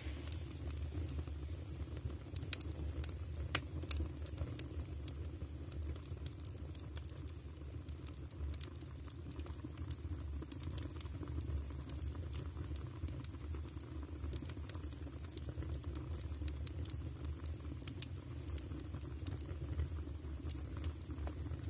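Firewood crackling in a stove: scattered sharp cracks, strongest a few seconds in and again near the end, over a steady low rumble of the fire.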